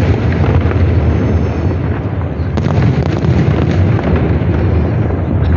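Aerial fireworks bursting in a continuous barrage: many sharp pops and crackles over a deep, steady rumble from the shell bursts.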